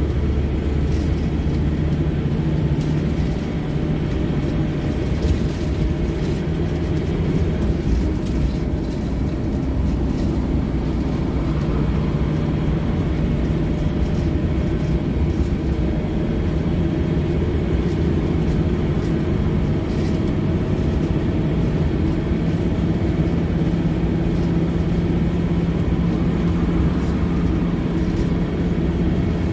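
Inside a Scania OmniLink single-deck bus under way: a steady engine and drivetrain drone with road noise. The engine note eases off about a third of the way in and strengthens again later, and a few sharp knocks sound from the bodywork.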